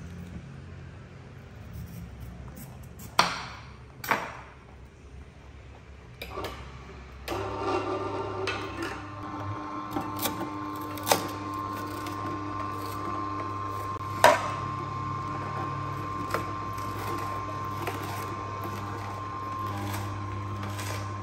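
Omega horizontal slow juicer: a few knocks at first, then its motor starts about seven seconds in and runs with a steady hum, with sharp cracks as carrot pieces are fed in and crushed by the auger.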